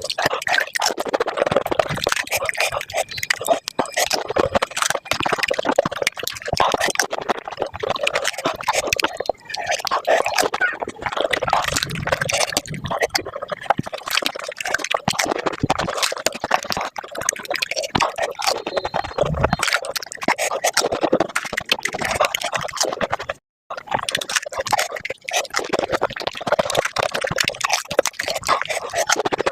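Panipuri eaten close to the microphone and played back sped up: a dense, continuous run of crunching puri shells and wet slurping and chewing of the filling water, broken by a brief gap about three-quarters of the way through.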